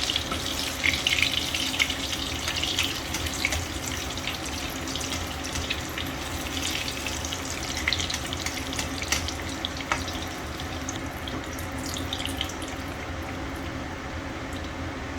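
Water running from a tap into a sink, with scattered clicks and clatter, busiest in the first few seconds.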